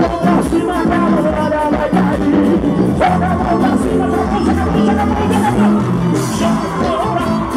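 Live band playing an upbeat song with accordion, keytar, bass guitar and drums, a steady drum beat under it, and a singer's voice over the band.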